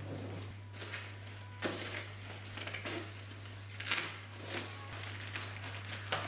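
A plastic courier mailer being slit with a box cutter and torn open by hand: crinkling and rustling of the plastic with several sharp tearing bursts, the loudest about four seconds in. A steady low hum runs underneath.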